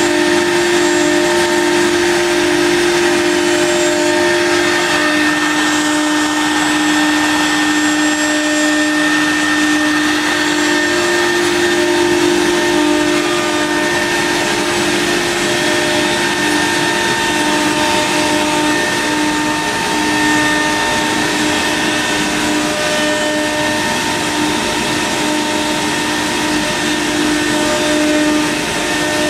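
Biesse CNC router's spindle running steadily as it routs a wood panel: a steady whine over a dense rushing noise.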